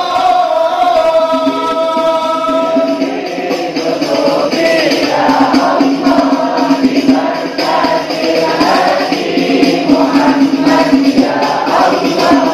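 A large congregation chanting an Islamic devotional chant together, many voices in a sustained sung melody.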